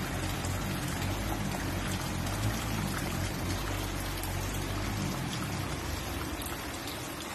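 Steady rain falling on floodwater, an even hiss.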